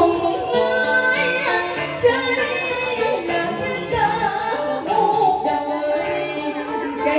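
Music with a woman singing a held, gliding melody over instrumental backing.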